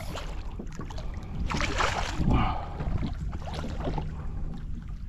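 Water splashing and sloshing against a fishing kayak while a hooked fish fights on the line, with wind on the microphone. The splashing swells into a louder rush about two seconds in.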